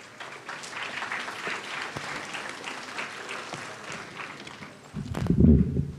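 An audience applauding, the clapping fading over about four and a half seconds, followed by loud low thumps about five seconds in.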